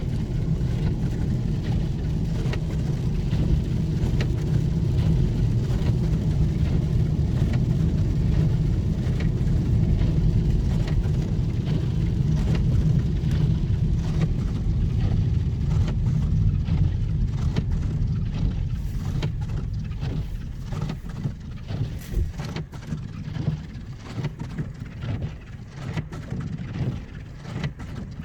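Windscreen wipers of a 2020 Mercedes-Benz E 220 d working in rain and striking the car body, over steady road and engine noise inside the cabin: a quite loud noise that the owner asks may be a defect. The road noise drops about two-thirds of the way through, leaving irregular sharp clicks and knocks.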